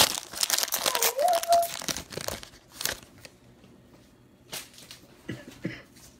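Plastic wrapper of a trading-card pack being torn open and crinkled, dense and loud for about the first two and a half seconds, followed by a few isolated light clicks.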